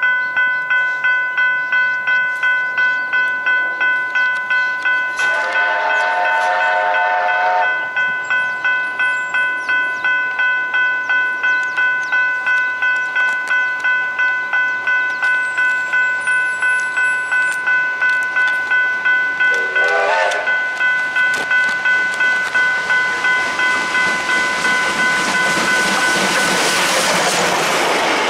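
Level crossing bell ringing steadily at about two strokes a second. The whistle of Victorian Railways A2 class steam locomotive 986 gives a long blast about five seconds in and a short toot around twenty seconds. In the last few seconds the noise of the approaching train swells as it draws level.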